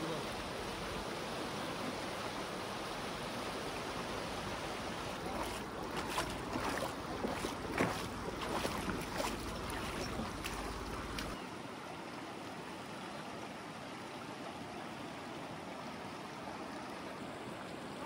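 Shallow, fast river rushing over rocks. Between about five and eleven seconds in come a series of sharp splashes, the footsteps of someone wading barefoot through the water. After that the sound gets a little quieter.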